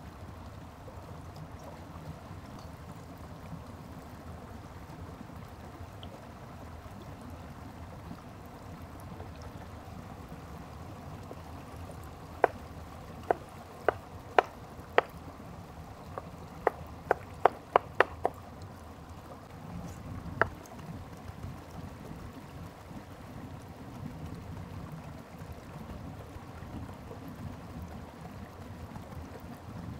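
Chef's knife chopping on a bamboo cutting board: about a dozen sharp, uneven knocks partway through, quickest in a short run near the end of them. A stream rushes steadily underneath.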